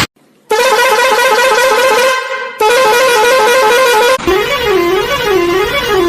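Electronic horn-like tone: two loud bursts with a fast warble, then a slower rising-and-falling wail from about four seconds in.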